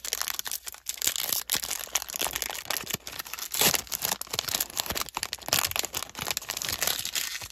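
Foil wrapper of a 1992 Leaf baseball card pack being torn open and crinkled by hand: a continuous crackling and tearing.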